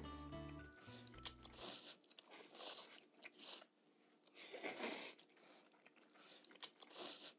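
Jjajang ramyeon (instant black-bean-sauce noodles) being slurped up with chopsticks in about five short bursts. A short music cue fades out in the first two seconds.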